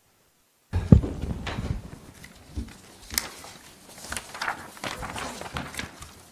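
Desk microphones picking up paper shuffling and scattered clicks and knocks on the table, with a loud thump about a second in as the sound cuts in after a moment of dead silence.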